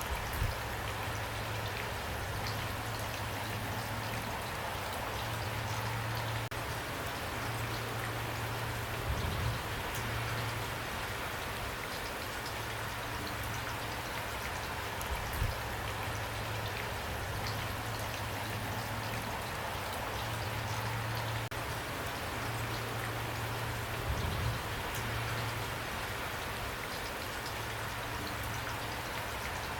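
Steady rain falling, with a few brief, louder low knocks of drops striking something.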